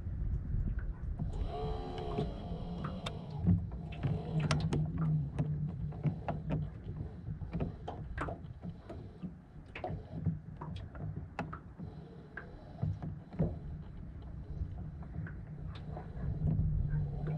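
Small waves lapping against the hull of a small aluminium boat, with many short irregular knocks and a steady low rumble; a low hum comes and goes.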